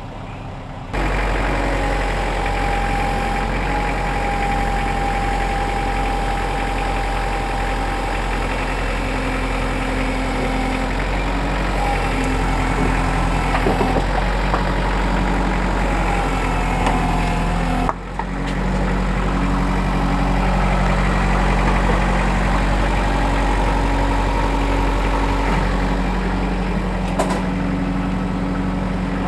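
Kubota loader tractor's diesel engine running steadily at idle. It starts about a second in and briefly drops out about eighteen seconds in.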